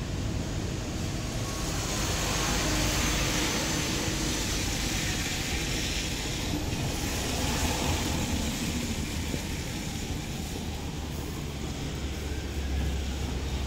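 Road traffic noise, with a vehicle passing that swells about two seconds in and fades away by around nine seconds.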